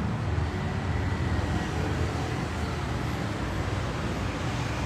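Steady low background rumble with a noisy hiss above it, holding an even level throughout.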